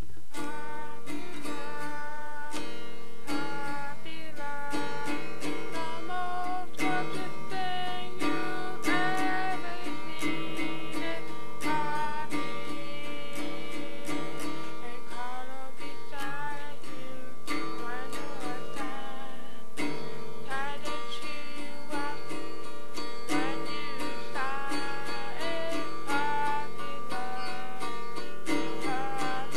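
A self-written song: a singer's voice over acoustic guitar strummed in a steady rhythm.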